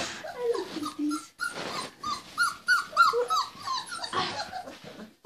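Three-week-old puppies whimpering: a quick run of short, high, arched squeaks, about three a second, after a lower falling whine near the start.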